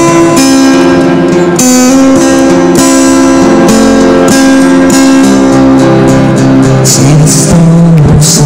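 Acoustic guitar strummed in chords, a steady instrumental passage with the chord changing every second or two and a lower chord coming in about six seconds in.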